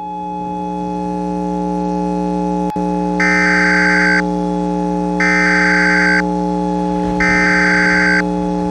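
Electronic emergency-alert tones: a steady buzzing hum that slowly grows louder, with three one-second bursts of higher alert tones a second apart.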